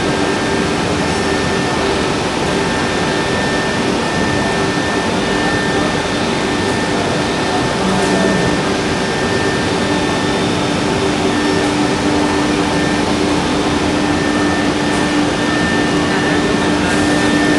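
Jinan Quick K1325AT automatic-tool-change CNC router running, its spindle routing a wooden panel: a steady high whine over a continuous loud machine noise.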